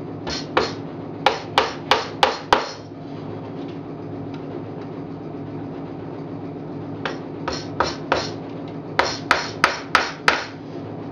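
Claw hammer tapping small nails through a metal frame rest into the wooden end board of a hive box: a run of about seven sharp blows, a pause of about four seconds, then a second run of about nine blows.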